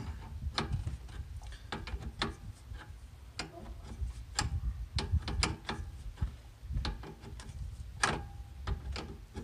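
11/16 wrench clicking against a transmission cooler line's threaded fitting as it is tightened into a new radiator, a little at a time: irregular light metal clicks as the wrench is moved on and off the nut, the loudest about eight seconds in.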